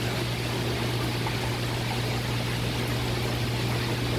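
Steady rush of circulating water in an aquarium tank, with a steady low hum from the pump.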